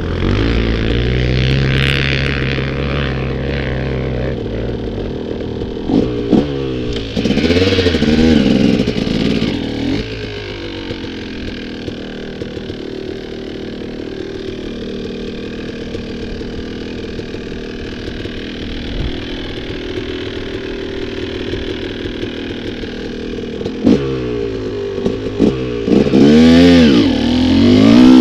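Dirt bike engine running at low revs, with throttle blips about six to nine seconds in, then revving up repeatedly near the end as the bike pulls away.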